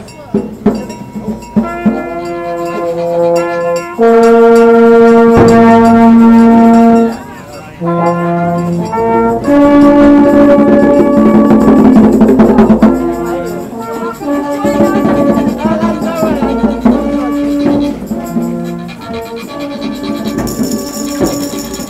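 New Orleans funeral-style brass band marching and playing, the horns holding long notes, loudest a few seconds in and again around the middle. A few sharp percussion knocks sound near the start.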